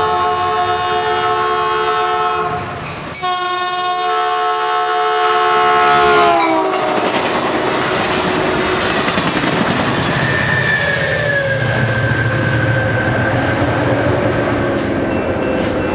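Caltrain passenger train's horn sounding a loud multi-note chord as it approaches, with a short break about 3 s in, then dropping in pitch as the train passes about 6 s in. After that comes the steady roar and clatter of the bilevel passenger cars' wheels on the rails as the train runs through at speed.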